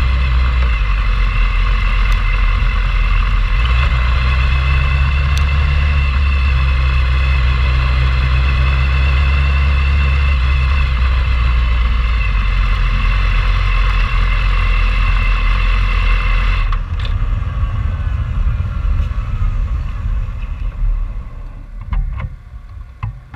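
Vehicle engine running steadily at low speed, a strong low drone with a steady high whine over it. About two-thirds of the way through the sound drops off abruptly, leaving a quieter, uneven rumble.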